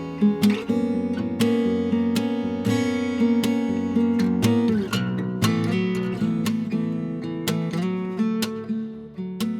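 Background music: strummed acoustic guitar playing sustained chords.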